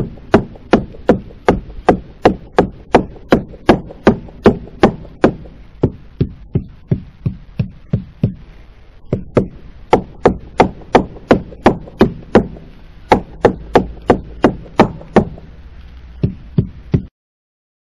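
Wooden mallet tapping a wooden boat hull, a steady run of knocks about two or three a second, used to sound out the planking for rot. Through a stretch in the middle the knocks come quieter, where the wood is rotten; a sound hull should ring.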